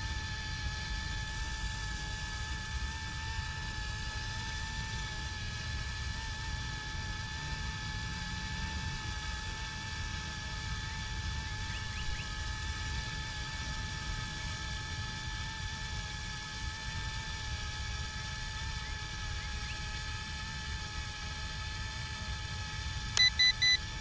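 Electric motor and rotors of a YuXiang F09-S Jayhawk RC helicopter, heard at a distance as a steady whine. Three short beeps near the end are the loudest sound.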